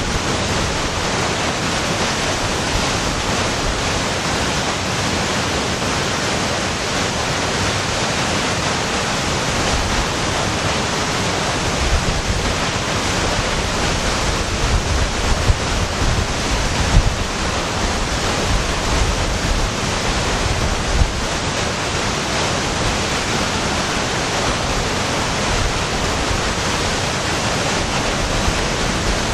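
Waterfall: a steady rush of falling water, with low rumbles that come and go in the middle stretch.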